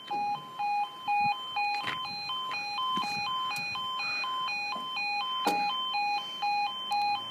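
Level crossing audible warning alarm sounding steadily, a two-tone electronic alarm flipping between a lower and a higher pitch about twice a second, warning that the barriers are down for an approaching train. A few faint knocks come through under it.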